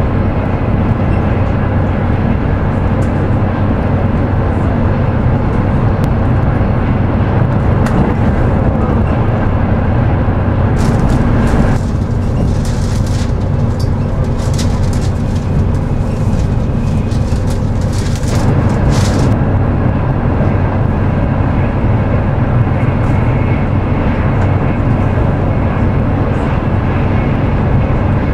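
An ETR 500 Frecciarossa high-speed train running at close to 300 km/h, heard inside the carriage as a steady low rumble and rush of running noise. In the middle the sound thins for several seconds while a hissing comes and goes.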